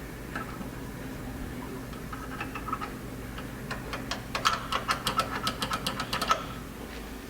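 Small metal carburetor parts clicking as they are handled and worked, a few scattered clicks and then a fast run of sharp clicks, about five or six a second, for a couple of seconds.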